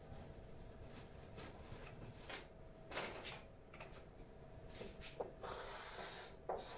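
Faint scattered knocks and rustles of someone moving at a blackboard, then a short scrape of chalk on the board near the end as a curved line is drawn.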